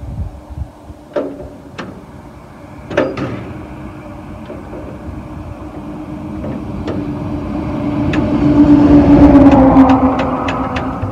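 Caterpillar Twenty-Two crawler tractor's four-cylinder gasoline engine being started by hand crank. A few clanks come in the first three seconds, then the engine catches and runs, growing steadily louder to a peak about nine seconds in before easing back.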